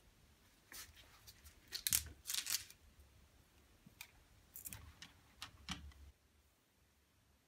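Small smooth black massage stones clacking against a metal slotted spoon and against each other as they are scooped from the tray and tipped onto a towel, in a quick run of sharp clicks that is loudest about two seconds in. Cloth rustles as the stones are rubbed in the towel.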